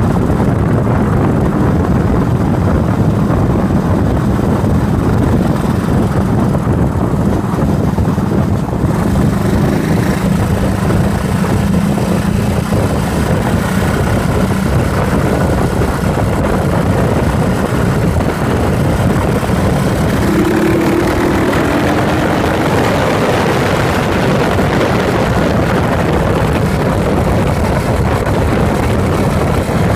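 Yamaha SRX400's air-cooled single-cylinder four-stroke engine running steadily while the bike rides along, picked up by a phone mounted beside the fuel tank.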